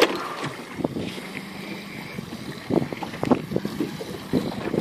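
Wind buffeting the microphone over the wash of the sea aboard a small fishing boat, with a faint steady low hum underneath. A sharp knock comes right at the start, and a few softer knocks follow later on.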